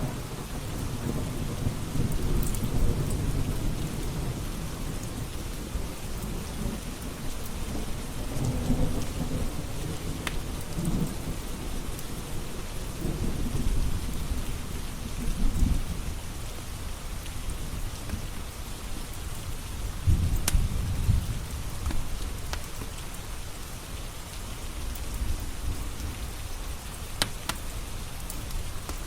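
Steady rain with thunder rumbling low several times, swelling and fading, the strongest rolls about halfway through and two-thirds in. A few sharp crackles from a wood fire in a fireplace stand out over the rain.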